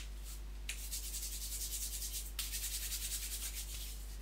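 Rapid, rhythmic scratchy rubbing noise, about seven strokes a second, in two runs with a brief break between them, over a steady low hum.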